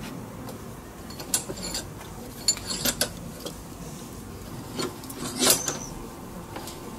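Steel tools being handled: scattered clicks and clanks of locking pliers and a hot steel ring knocking against a bench vise, the loudest about five and a half seconds in.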